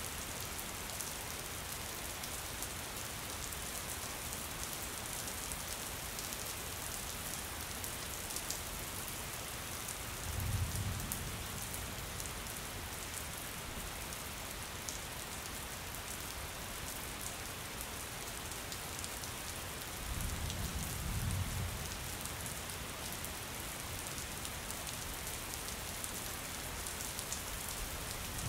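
Steady rain sound effect, an even hiss of rain falling on a surface with light patter. Twice, about ten and twenty seconds in, a deep low rumble swells for a couple of seconds.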